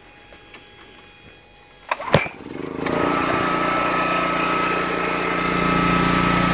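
Honda EX1000 portable generator being started: a couple of sharp pulls about two seconds in, then the small engine catches and settles into a steady run.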